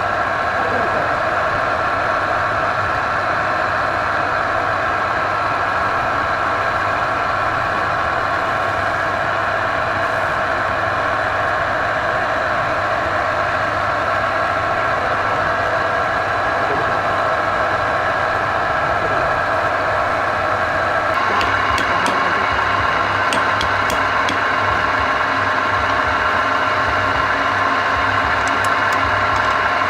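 Woodturning lathe running with a steady mechanical hum. About two-thirds of the way through, the sound turns brighter and a few light ticks come in.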